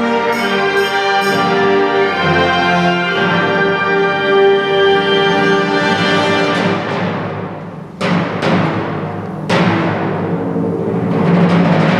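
Concert wind band playing sustained brass-led chords with timpani, then two heavy crashes about eight and nine and a half seconds in that ring on, before the band swells again.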